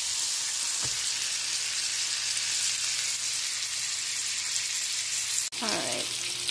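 Porterhouse steak searing in melted butter in a frying pan, a steady sizzling hiss. The sound cuts out for an instant about five and a half seconds in.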